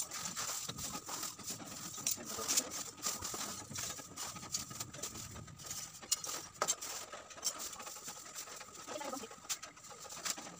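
Pieces of coconut-shell charcoal clattering and clinking as they are scooped by hand from a sack into a plastic bag, in irregular clicks.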